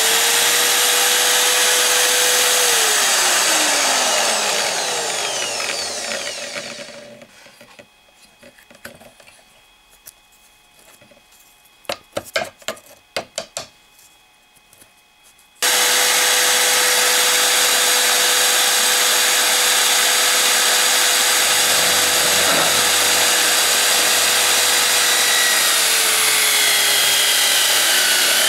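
Drill press with a large hole saw running and cutting into plywood; about three seconds in it is switched off and its pitch falls as it winds down. A few sharp clicks and taps follow while the cut disc is handled, then the loud steady running of the drill press and cutter comes back abruptly, its pitch dipping briefly near the end as the saw bites into the wood.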